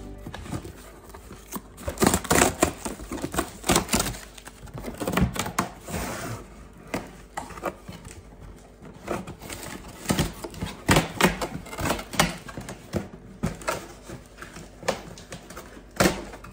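Cardboard shipping box being opened and its packaging handled: irregular rustling, crackles and knocks.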